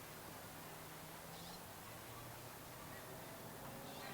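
Quiet outdoor background with a faint steady hum in the first second or so and two brief, faint high chirps, one early and one near the end.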